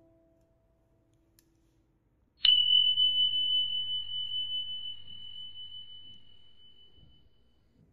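A single sharp strike about two and a half seconds in, followed by one clear, high, bell-like ringing tone that slowly fades over about five seconds.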